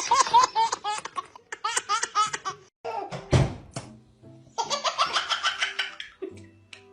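A baby laughing in runs of short repeated giggles, breaking off for about two seconds in the middle, with music underneath.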